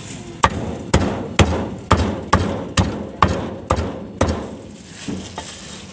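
A heavy cleaver chopping barbecued meat on a thick round wooden chopping block. There are about nine sharp, hard chops at roughly two a second, then a few lighter ones near the end.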